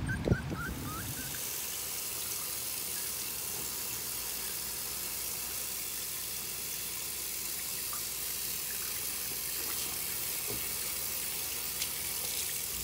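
Bathroom sink faucet running steadily while a puppy is washed in the basin, after a few short puppy whimpers right at the start.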